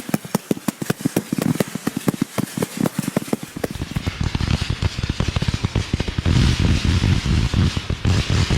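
Fireworks going off in a rapid barrage, many sharp shots a second. About four seconds in they thicken into heavier, louder volleys with crackling over them.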